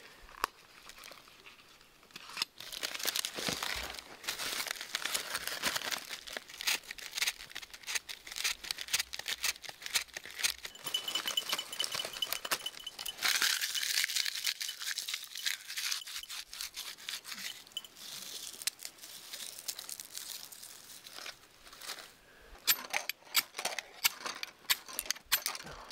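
Dry birch bark and wood shavings crinkling and tearing as they are handled and crumpled into a fire lay. Near the end comes a run of sharp scrapes from a ferro rod being struck, throwing sparks onto the bark.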